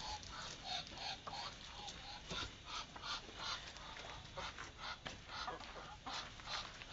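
Free-range village chickens and ducks feeding together: a busy run of many short, quick calls and feeding noises.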